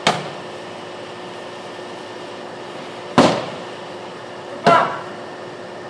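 Expandable steel baton strikes landing on padded targets: three sharp whacks, one right at the start, one about three seconds in and another a second and a half later.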